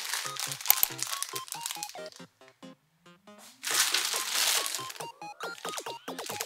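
Clear plastic bags of spare keycaps crinkling as they are handled, loudest from about three and a half to five seconds in, over background music with short plucked notes.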